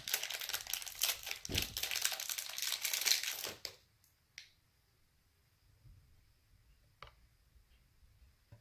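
Small plastic wrapping crinkling and tearing as it is pulled off a blind-box toy piece, for about the first three and a half seconds, then two faint clicks.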